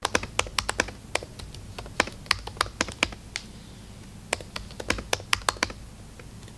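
Typing on a laptop keyboard: quick, uneven keystroke clicks in runs, with a short pause a little past the middle.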